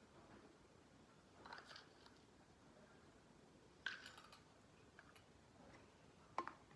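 Faint, sparse scrapes and clinks of a steel spoon against stainless steel bowls as sugar is spooned in and stirred. The sharpest clink comes about four seconds in, and another comes near the end.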